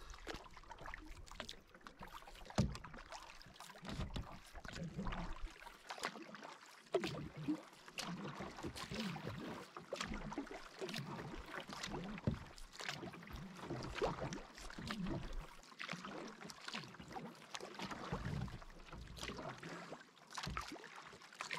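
Canoe being paddled: paddle strokes swishing through the water every second or two, with drips and small clicks and knocks.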